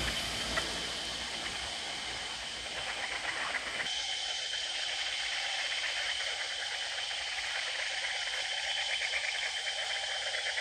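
Steady, shrill insect chorus of the forest (jhijhi poka, cicadas and crickets), a dense buzzing with a fine rapid pulse. A low vehicle rumble fades out in the first four seconds or so.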